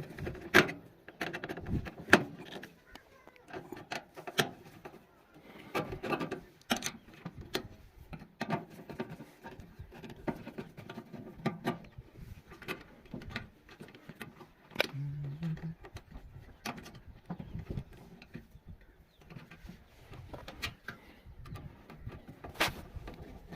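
Scattered sharp clicks and knocks at irregular intervals, with low voices now and then.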